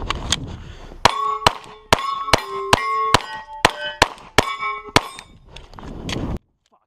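Rapid 9mm pistol shots on steel targets, about two to three a second. Each hit rings the steel plate with a metallic clang. The sound cuts off suddenly near the end.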